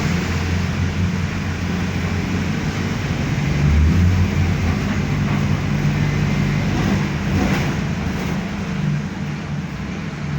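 Diesel engine of a Mercedes-Benz OF-1519 Bluetec 5 bus, a front-mounted four-cylinder, running under way with a steady low drone that swells briefly about four seconds in.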